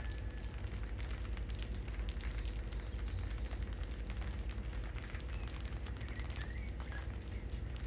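A crowd of field rats scrabbling and rustling over one another on a tiled floor strewn with rice grains, a constant crackle of small clicks and scratches over a low steady hum, with a few short high squeaks in the later part.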